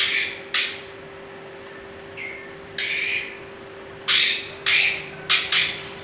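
Young white-rumped shamas giving short, harsh squawks, about seven of them, some in quick pairs, while a chick is held in the hand for leg-ringing. Faint short high chirps sound between the squawks.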